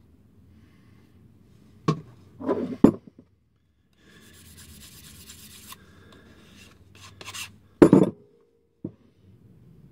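Shoemaker's knife being sharpened on a wooden-backed sharpening block. A few knocks and clacks come as knife and block are picked up, then a steady scraping rub of the blade for about a second and a half. Near the end come a couple of quicker strokes and a loud knock.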